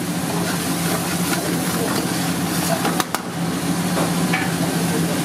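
Thick curry gravy sizzling and bubbling in a metal frying pan over a gas burner, a metal ladle stirring through it, with one sharp knock of metal on metal about three seconds in. A steady low hum runs underneath.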